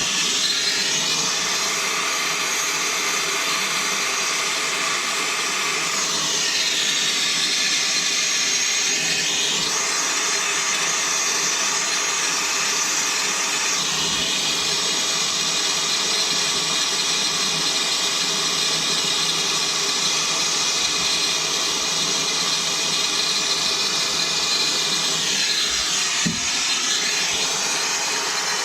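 Handheld gas torch burning with a steady hiss as its flame reheats solder over the leak in a steel water heater tank. The hiss shifts in tone a few times as the flame is moved over the metal.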